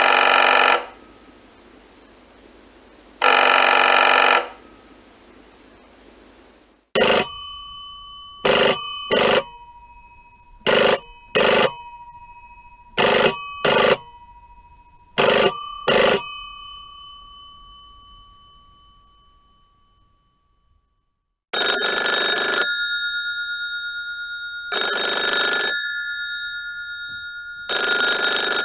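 Three different telephone rings in succession. First, a buzzy ring in bursts about three seconds apart. Then pairs of sharp bell-like strikes that ring on and fade. Then a bell-type ring in bursts about a second long, every three seconds.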